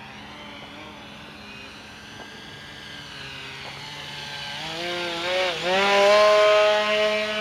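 E-flite QQ Edge RC aerobatic plane's electric motor and propeller whining, growing louder as the plane comes in low and passes close, loudest about six seconds in. The pitch dips briefly and rises again just before the loudest part.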